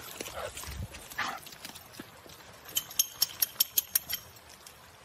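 A dog moving along a dirt trail: light scuffing and rustling, then a quick run of about eight sharp clicks, about five a second.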